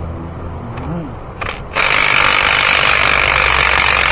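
Ratchet with a spark plug socket clicking rapidly as it backs a spark plug out of the V8's cylinder head. A couple of separate clicks come first, then about two seconds in a loud, continuous ratcheting rattle sets in and runs for a couple of seconds.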